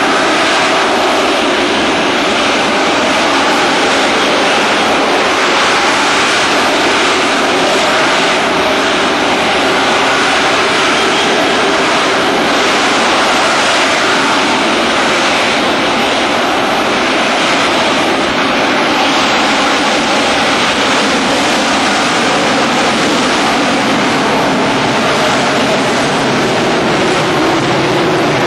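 AV-8 Harrier jump jet's Pegasus vectored-thrust turbofan running loud and steady as the jet hovers, then moves off into forward flight and climbs away.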